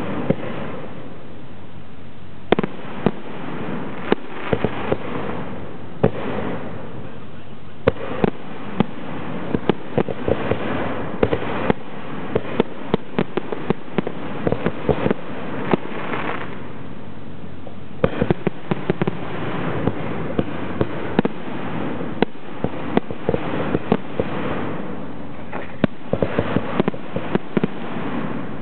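Zambelli professional aerial fireworks display: shells launching and bursting in a rapid, irregular run of sharp bangs, at times several a second, over a constant noisy wash.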